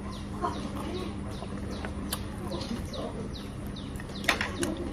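Birds chirping in quick, short calls that fall in pitch, several a second, over a steady low hum.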